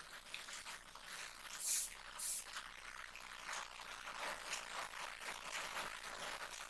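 Handling noise from a timing belt being worked by hand in a disassembled Epson L1455 inkjet printer: two short scraping rasps about two seconds in, then a run of faint scratches and rubs against the printer's frame.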